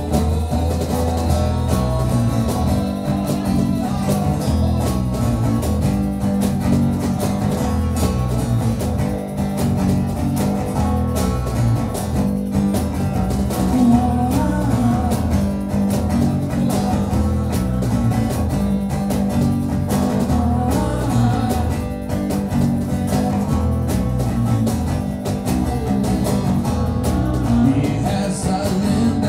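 Acoustic band playing a bluesy song: a strummed acoustic guitar over a steady cajón beat, with a man's voice singing at times.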